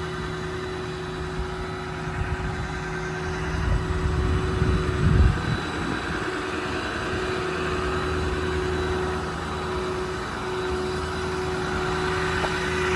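Ford F550's 6.4-liter Power Stroke diesel engine idling steadily. There is a louder low rumble about four to five seconds in.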